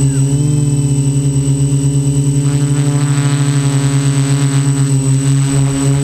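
Quadcopter's electric motors and propellers buzzing in flight, heard close up from the camera on the craft. The steady drone pulses quickly and evenly, about eight times a second.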